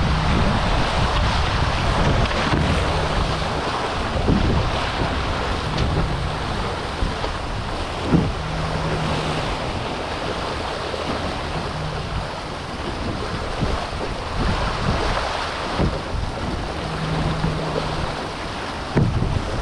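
Wind buffeting the microphone of a camera high on the mast of a Prindle 19 catamaran under sail at about 13 mph, over the steady rush of water along the hulls. A faint low hum comes and goes every few seconds, with an occasional light knock.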